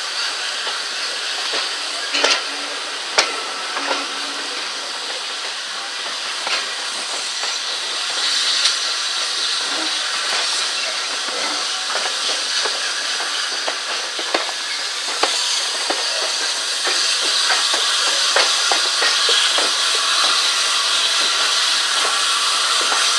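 Steam-hauled train running slowly, heard from an open carriage window: a steady hiss of steam and running noise with irregular sharp clicks and knocks from the wheels over rail joints and pointwork, getting a little louder near the end.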